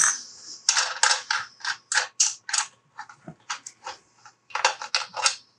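Rapid metallic clicking from the axle nut and hardware of an ebike front hub motor being worked loose. The clicks come about four a second in short runs, with brief pauses between them.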